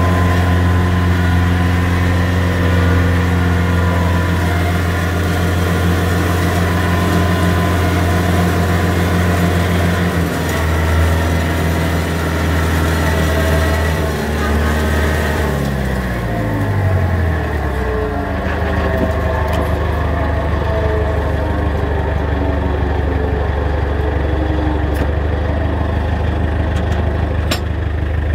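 Antonio Carraro TC5800f compact tractor's diesel engine running steadily under load while driving an offset flail mower through grass. About halfway through, the engine's pitch falls over a few seconds, and it then runs on at a steady lower speed.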